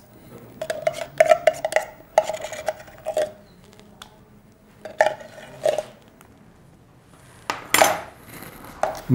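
Metal spoon scraping and clinking against a tin can and a stainless steel bowl as tomato purée is spooned out: bursts of clicks with a short metallic ring, the loudest knock near the end.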